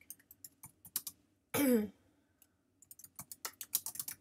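Typing on a computer keyboard: quick runs of keystrokes, pausing in the middle, where a short, loud vocal sound (like a cough or a brief hum) falls in pitch about one and a half seconds in.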